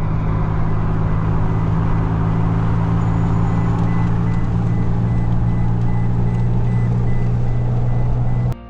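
Steady low drone of a car's engine and tyres on the road while driving, heard from inside the vehicle; it cuts off suddenly near the end.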